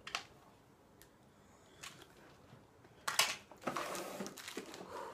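Plastic clicks and knocks as a Pie Face game toy is handled and set up, with a few sharp clicks in the first two seconds, then a busier stretch of rustling and scraping from about three seconds in.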